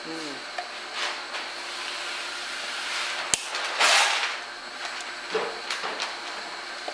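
Long metal tool working inside a Mustang manual door mirror housing during disassembly: a sharp click a little over three seconds in, then a short scraping rush, with a few lighter clicks and knocks before and after, over steady background noise.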